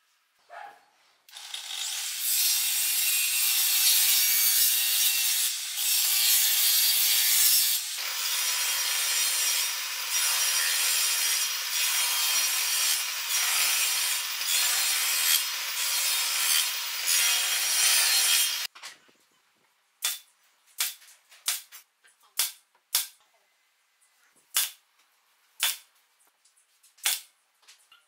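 Table saw cutting through a wooden board: loud, steady cutting noise for about seventeen seconds that stops abruptly. Then a string of about ten short, sharp clicks a second or less apart.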